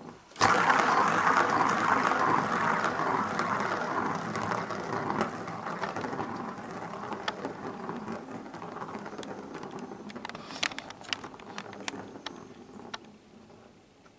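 Plastic ball rolling fast around the circular plastic track of a cat scratcher toy. It starts suddenly and dies away slowly as the ball loses speed, with a few sharp clicks near the end.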